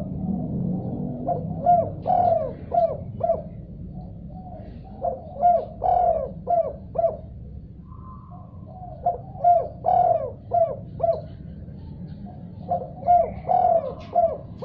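Spotted dove (tekukur) cooing in repeated phrases of short, quick coos, four phrases with brief pauses between them, over a steady low hum.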